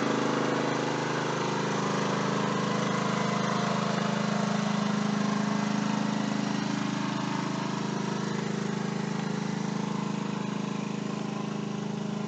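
Ryobi 4000-watt open-chassis inverter generator's engine running steadily under load while it powers a 15,000 BTU RV air conditioner. It does not stutter or hunt. The hum fades gradually toward the end.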